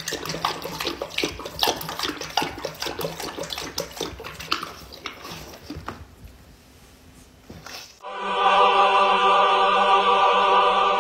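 A dog lapping water from a metal bowl: quick, irregular wet laps for about six seconds. About eight seconds in, a loud held tone, steady in pitch and rich in overtones, takes over.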